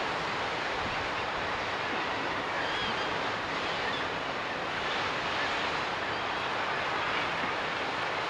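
Steady wash of sea surf breaking at the foot of sea cliffs, with a few faint seabird calls over it a few seconds in.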